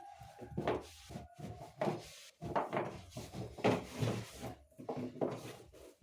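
Irregular knocks, clatters and rubbing as the inside of a refrigerator and its removed parts are handled and wiped down.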